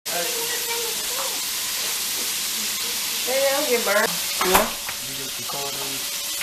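Chicken frying in a skillet of hot oil, a steady sizzle, with a brief indistinct voice and a sharp knock about four and a half seconds in.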